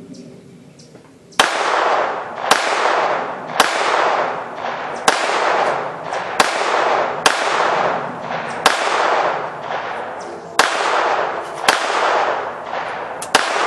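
Walther .22 pistol fired about eleven times at a steady pace of roughly one shot a second, each sharp crack followed by a long rolling echo; the last two shots come close together near the end.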